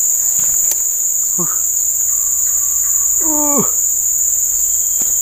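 Loud, steady, high-pitched drone of insects in the riverside trees, unbroken throughout, with a short falling vocal call about three seconds in.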